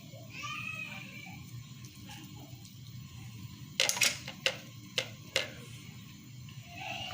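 A quick run of sharp clicks and knocks, like kitchen utensils or dishes being handled, starting about four seconds in: two close together, then three more spaced about half a second apart. A faint high-pitched voice comes briefly near the start and again near the end.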